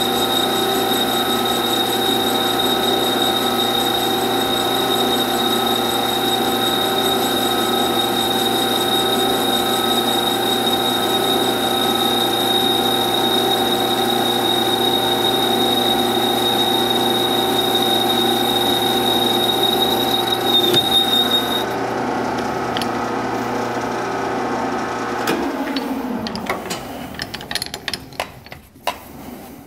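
Metal lathe running while a boring bar takes a light cut inside a steel DOM tube held in a four-jaw chuck: a steady machine sound with a high whine. The high whine stops about 21 seconds in, and the lathe is switched off about 25 seconds in and spins down with a falling pitch. Near the end a brush sweeps chips from the chuck with scattered light clicks.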